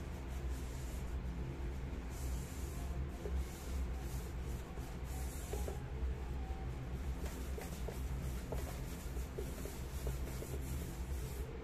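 Tissue paper rubbing around the inside of a small electric pot's non-stick pan in repeated wiping strokes, with a few light clicks of the pot being handled, over a steady low hum.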